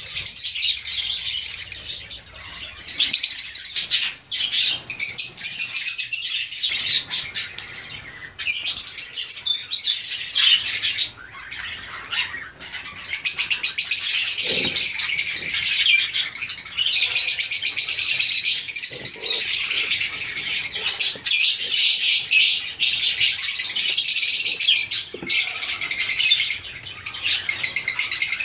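Lovebirds chattering: shrill, rapid, high-pitched calls in long bouts, breaking off briefly several times.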